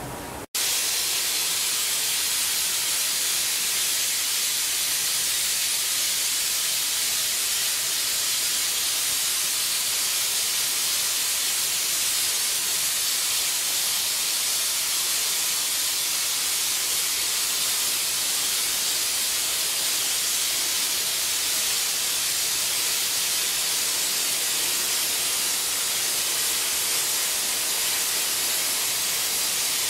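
Glassblower's gas torch flame hissing steadily as it heats a glass frit and seal. The hiss starts abruptly about half a second in and then holds at an even level.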